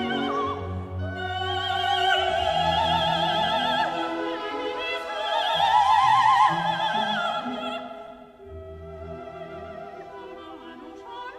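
Operatic singing with wide vibrato over orchestral accompaniment; the voice swells to its loudest about six seconds in, then the music drops quieter.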